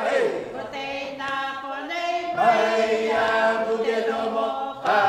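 Mixed group of men and women singing together unaccompanied, holding long sustained notes.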